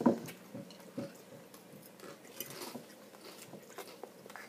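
A baby chewing a mouthful of snack, with faint wet mouth clicks. A sharp knock comes right at the start and a smaller one about a second in.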